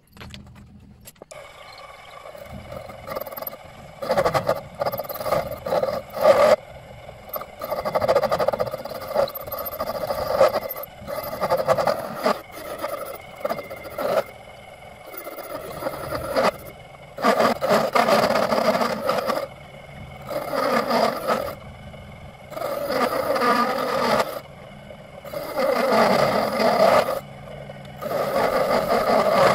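A workshop tool working on material in repeated bursts of one to three seconds, with short pauses between them.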